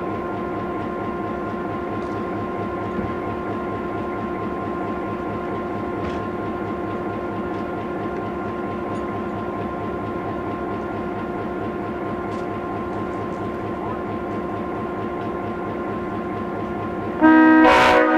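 Diesel locomotive idling steadily, with a low, rapid pulsing under several steady tones. About a second before the end, a Leslie S5T five-chime air horn starts sounding loudly.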